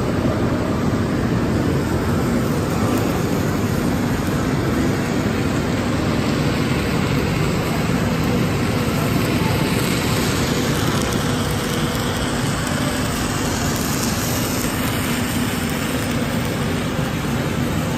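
A large engine running steadily, a low even rumble.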